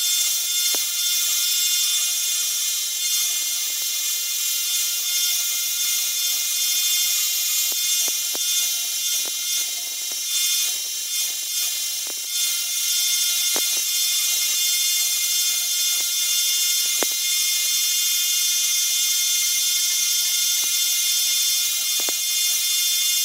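1x30 bench belt sander running, with a steel ball peen hammer head pressed against the belt: a steady high-pitched grinding hiss, broken now and then by light clicks as the head shifts on the belt.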